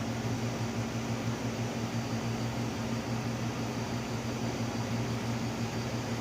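Steady electric motor hum with rushing air noise from a fan or blower, running evenly without change.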